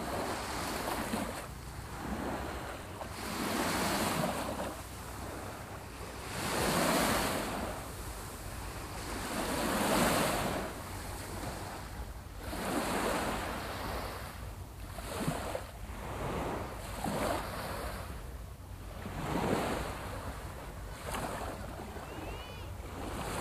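Sea waves breaking and washing on the shore, swelling and fading about every two to three seconds, with a steady rumble of wind on the microphone.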